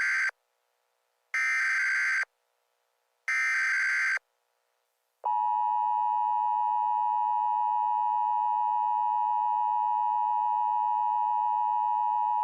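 Emergency Alert System alert tones: the end of one burst of the screeching SAME data header, then two more, each a little under a second long and about a second apart. Then the steady two-tone EAS attention signal starts and holds.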